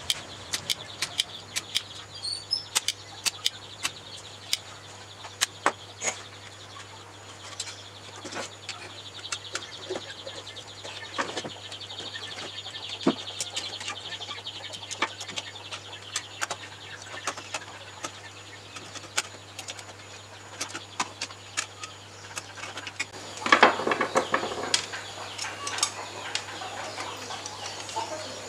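Scattered short clicks and taps of tools and hands working on a TV circuit board, over a steady low electrical hum. About 23 seconds in there is a louder noisy burst lasting a second or two.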